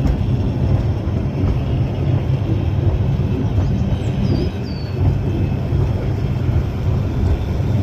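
Steady low rumble of the Shipley Glen Tramway's cable-hauled funicular car running down its rails, heard from on board.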